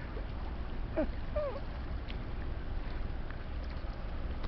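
Steady low rumble with a noisy haze over it from the lake freighter Paul R. Tregurtha passing close by. A couple of short curving calls come about a second in.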